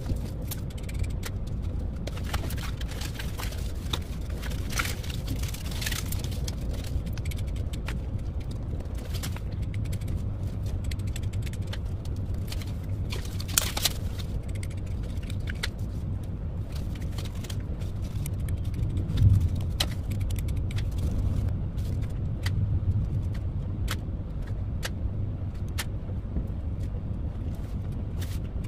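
A steady low rumble, with scattered light clicks and rattles as foam and paper craft pieces and a pearl strand are handled, and one louder knock about two-thirds of the way through.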